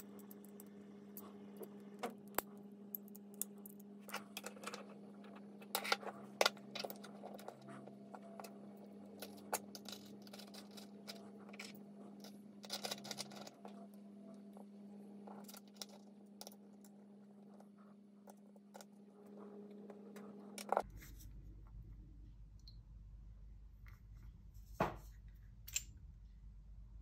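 Small metal clicks, taps and scrapes as an offset scope mount and its rings are handled and fitted onto a rifle scope, over a steady hum that changes to a lower one about two-thirds of the way through.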